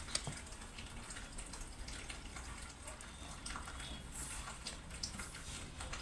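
Bare hand mixing rice with wet pork curry and gravy: soft, wet squishing with many small clicks.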